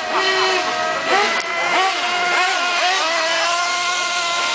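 Several nitro-powered radio-controlled cars' small glow-fuel engines running at high revs in a race, whining in overlapping tones that rise and fall as the throttle opens and closes.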